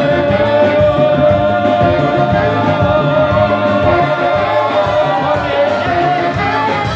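Live band music with a male singer singing over electric guitar, bass, horns and drums, with a steady beat and a long held note.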